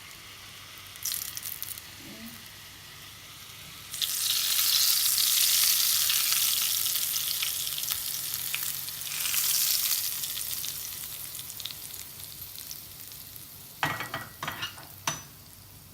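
Hot ghee tadka (ginger, green chili and hing tempering) sizzling. A loud sizzle bursts in about four seconds in, swells again a few seconds later and slowly dies away, with a few sharp utensil knocks near the end.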